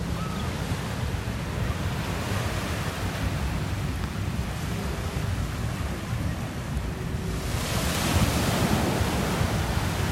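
Small waves breaking and washing up a sandy shore, with wind buffeting the microphone as a steady low rumble. The surf hiss swells louder about three-quarters of the way through.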